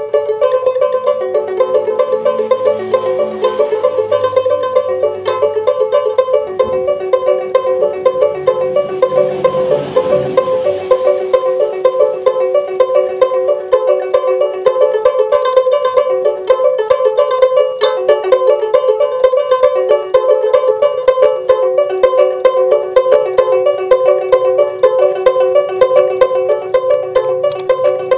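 Sumbanese juk, a small carved wooden plucked lute, played with a fast, steady run of picked notes repeating a short pattern on a few high notes.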